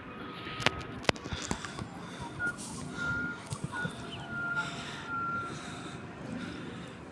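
Garbage truck's reversing alarm beeping about five times at a steady pitch over the truck running, after two sharp knocks about a second in.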